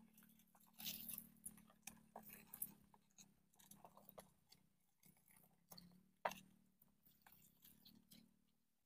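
Near silence: faint scattered crackles and clicks over a low steady hum, with one sharper click about six seconds in.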